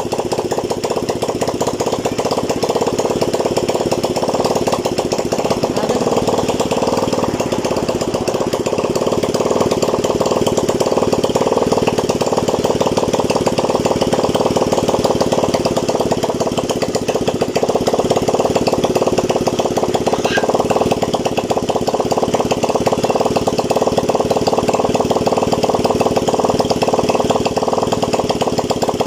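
Freshly overhauled Honda TMX 155's single-cylinder four-stroke engine running steadily with a fast, even firing beat.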